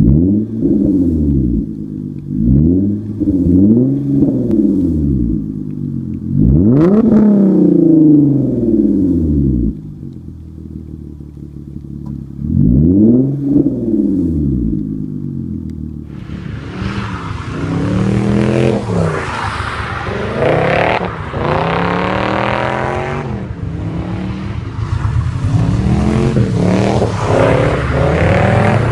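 Hyundai Genesis Coupe 3.8 V6 with an ISIS cat-back exhaust revved while standing, in separate quick blips that rise and fall, with one longer rev about seven seconds in. About sixteen seconds in it gives way to a Lexus LS400's automatic V8 with stainless exhaust, revving up and down over and over as the car is drifted.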